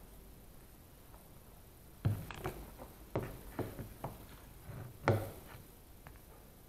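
Ceramic figurines being handled on a workbench. Starting about two seconds in, there are about eight light knocks over three seconds, and the loudest comes about five seconds in.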